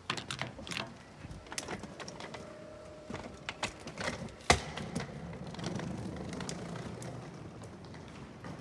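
Scattered clicks and knocks of a hard-shell wheeled suitcase being pulled through a glass door, with one sharp knock about halfway through.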